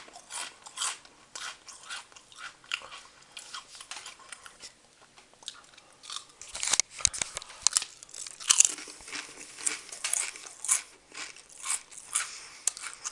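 Crisp potato chips being bitten and chewed close to the microphone: a run of sharp crunches, denser and louder in the second half.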